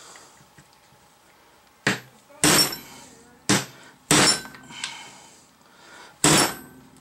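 Hammer blows on a steel drift punch driving the kingpin out of a Datsun pickup's steering knuckle: about five sharp metallic strikes at uneven intervals, starting about two seconds in, each with a brief ring.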